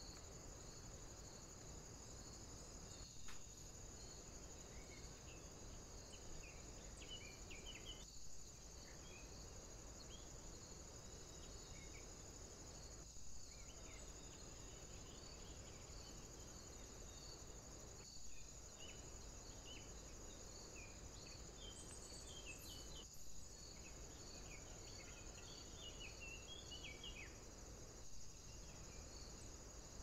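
Faint, steady insect chorus, crickets stridulating in a high continuous trill with a regular pulse, with scattered soft bird chirps. A brief click and dropout comes about every five seconds.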